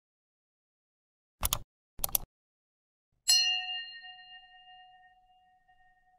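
End-screen sound effects: two short, sharp hits about half a second apart, then a single bright bell ding that rings out and fades over about two seconds.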